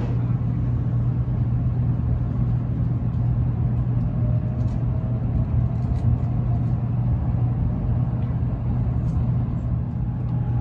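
Steady running noise of a passenger train heard from inside the car: a low, even hum over rumble, with a few faint ticks.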